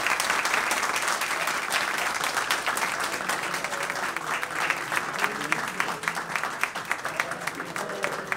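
Audience applauding: a dense round of clapping that thins out to more scattered, separate claps over the last few seconds.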